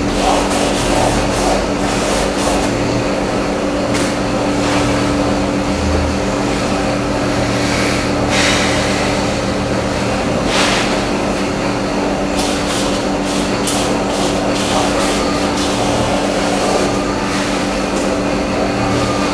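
Steady mechanical rumble with a constant low hum, of the kind heard riding in a vehicle or train. Scattered clicks and knocks run through it, bunched up a little past the middle.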